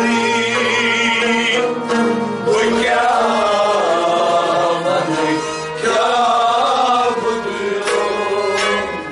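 Harmonium, rubab and a bowed string instrument playing together. A voice sings over them in melody lines that bend and waver.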